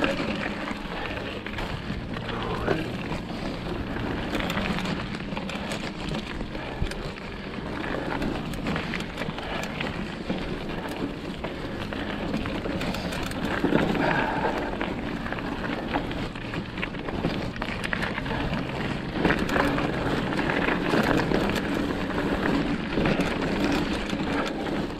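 Mountain bike riding down a dirt singletrack: steady tyre noise on the dirt with the bike rattling and clicking over bumps throughout.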